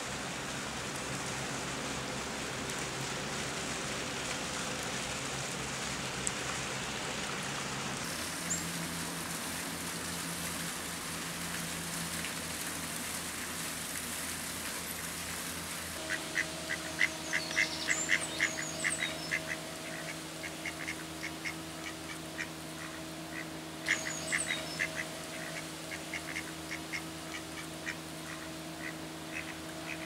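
A steady hiss of outdoor ambience, then, about halfway through, mallard ducks quacking in quick runs of short calls. A second bout of quacking follows a little later.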